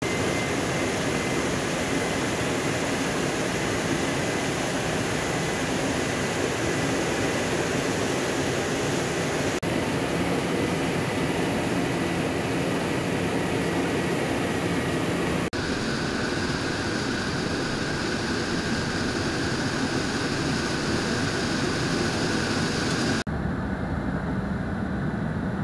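Steady in-flight noise inside a C-17 Globemaster III: the rush of its four turbofan engines and the airflow, with a faint steady whine over it. The sound jumps abruptly a few times, and near the end it turns duller as the high hiss falls away.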